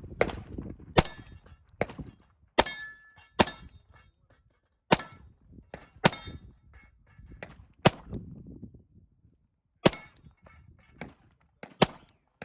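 Pistol shots from a compensated Sig Sauer P320, about ten sharp reports fired slowly and unevenly across the stage, with steel targets ringing after several hits.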